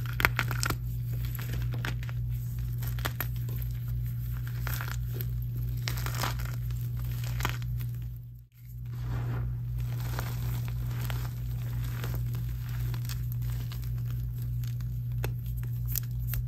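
Hands crushing and squeezing blocks of gym chalk, a dense run of crisp crunches and crumbles as the chalk breaks into chunks and powder. A steady low hum runs underneath, and the sound drops out briefly about halfway.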